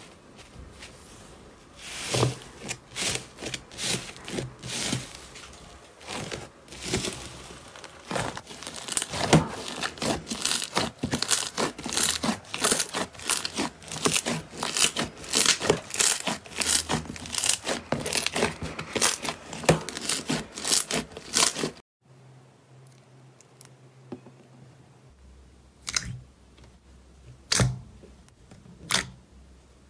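Thick green fluffy slime squeezed and kneaded by hand, giving a dense, steady run of crackling and popping as air pockets burst. It stops suddenly about two-thirds of the way in, and a few separate sharp pops follow as glossy slime is pressed with the fingers.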